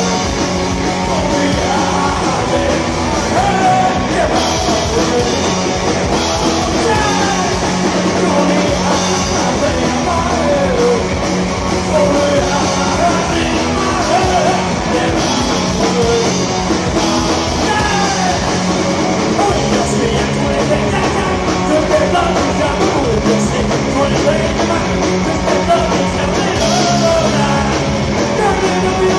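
Live punk rock band playing loud, with distorted electric guitars, bass and drums under sung and shouted vocals.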